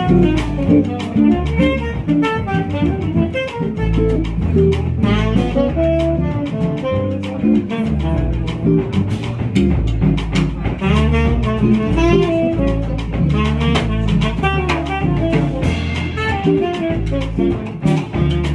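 Live small-group jazz: an archtop guitar plays with double bass and drum kit, a busy melodic line running over the bass notes and cymbal strokes.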